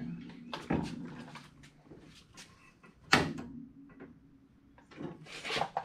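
Knocks and clunks of a UTV's rear trailing arm and its mounting hardware being lined up and bolted in, with one sharp knock about three seconds in and a scraping rustle near the end.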